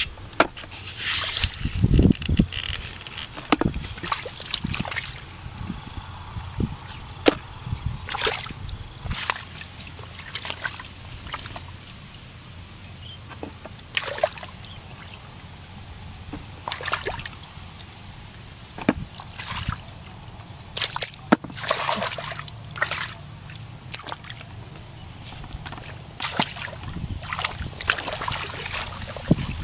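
Hands digging and scooping in wet mud and shallow muddy water, with irregular sloshes and splashes.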